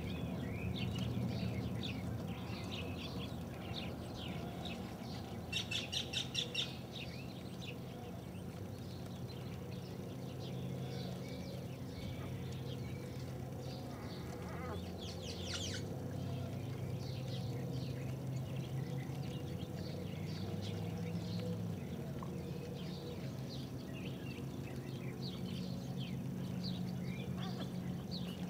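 Faint, high-pitched animal squeaks and chirps scattered throughout, with a short run of quick, louder calls about six seconds in, over a steady low hum.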